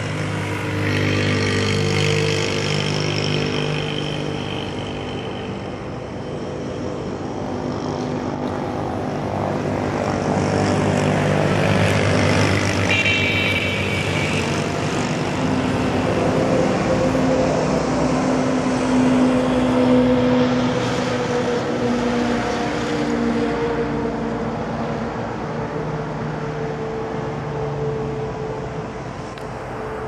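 Motor vehicle engines running, their pitch and loudness rising and falling as traffic passes, with a brief high-pitched beep about thirteen seconds in.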